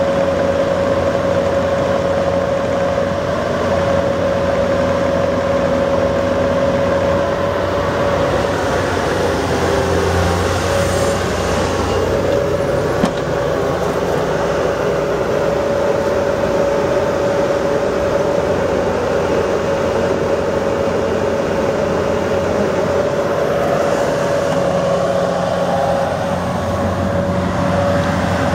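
Bobcat 341G compact excavator's Kubota four-cylinder turbo diesel running steadily, with a constant high whine over the engine drone.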